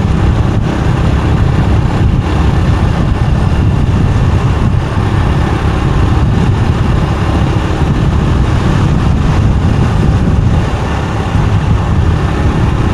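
Steady rumble of riding a motorbike: wind buffeting the microphone over the engine and road noise.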